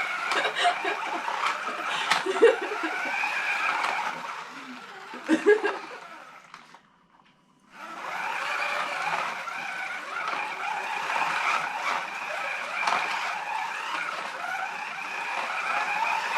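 Scalextric GT4 Ford Mustang slot cars running on the track, their small electric motors whining with a pitch that wavers as they speed up and slow. There are brief bursts of children's laughter in the first few seconds, and the sound cuts out for about a second midway.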